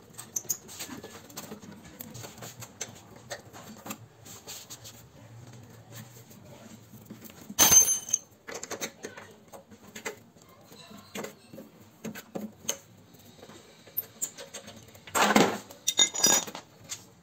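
Small metal clinks and rattles as the mounting nuts of a scooter's tail-light unit are undone by hand and the unit is worked loose, with two louder clattering knocks about eight seconds in and near the end.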